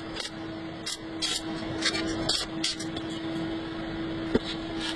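Electric arc welding on a scythe blade: a steady crackling hiss over a low, steady hum, broken by irregular sharp spitting pops about twice a second.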